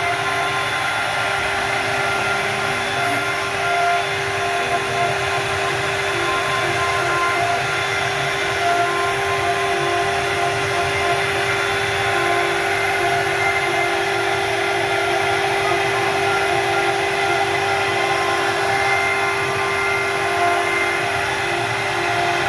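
CNC wood router running and carving wooden bed parts: a steady high tone from the spindle over loud, continuous cutting noise.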